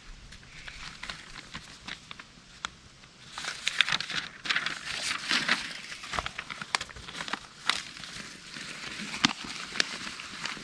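A paper pamphlet being unfolded and handled, crinkling and rustling in irregular crackles, loudest about a third of the way in while it is opened out.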